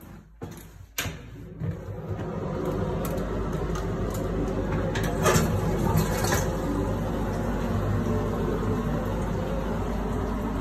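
A toilet being flushed: a click about a second in, then a steady rush of water that holds as the bowl and tank refill.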